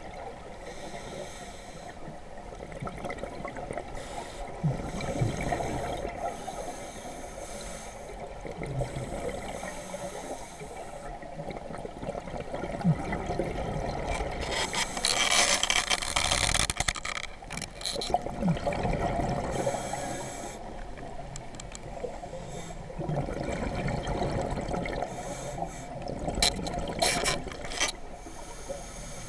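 Scuba regulator breathing underwater: swells of breath hiss alternating with exhaled bubbles, the loudest bubble burst about halfway through.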